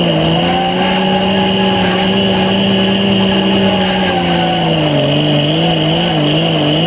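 Pulling tractor's engine running hard under load, a loud steady drone whose pitch dips slightly at the start. About five seconds in, the pitch begins to waver up and down about twice a second.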